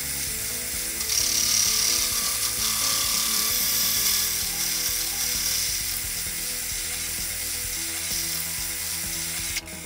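Hole saw in a milling machine cutting through a thin-walled aluminum frame section and the wooden blocks clamped around it: a steady, high, gritty cutting noise, loudest in the first few seconds, that stops abruptly near the end.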